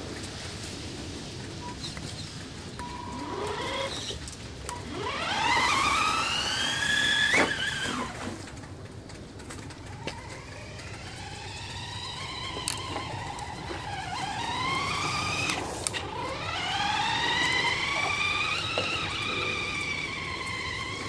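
Electric motor whine of an RC truck's Titan 550 12-turn brushed motor, rising and falling in pitch three times as the truck speeds up and slows down. The loudest run is about six seconds in.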